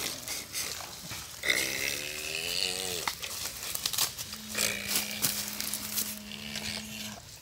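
A person voicing a truck engine for a toy dump truck: a wavering growl about a second and a half in, then a long steady hum from about four seconds in. Under it, short scrapes and crunches of dirt as the toy truck is pushed over the ground.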